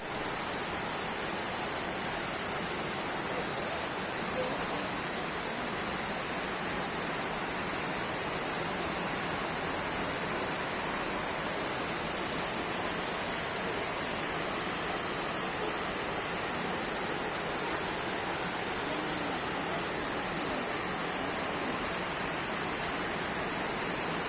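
Waterfall: a steady, even rush of falling water, with a steady high-pitched buzz on top.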